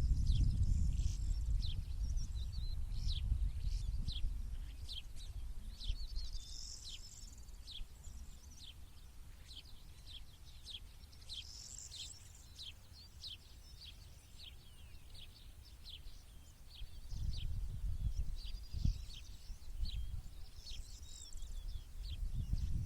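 Small birds chirping and singing continuously in quick, high, short notes. A low rumble sits under them, strongest at the start, again about three-quarters of the way through, and at the end.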